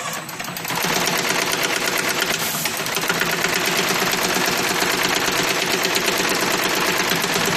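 High-speed brush tufting machine running, its head punching bristle tufts into plastic brush blocks in a rapid, steady mechanical clatter. The clatter is quieter for about the first second, then runs on evenly.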